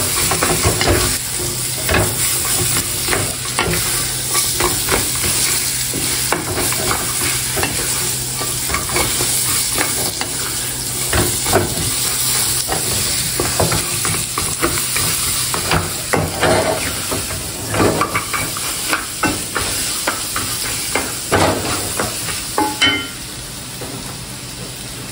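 Tempoyak (fermented durian paste) and chopped ingredients sizzling in a hot frying pan while a wooden spatula stirs and scrapes them, with frequent knocks of the spatula against the pan. The sizzle quiets slightly near the end.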